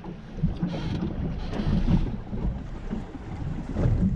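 Wind buffeting the microphone, with choppy lake waves slapping against the hull of a small anchored fishing boat.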